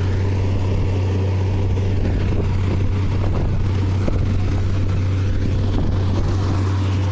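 Truck-mounted borewell drilling rig running steadily with a deep, steady hum, its compressed-air flush blowing water and mud slurry up out of the bore: the well has struck water.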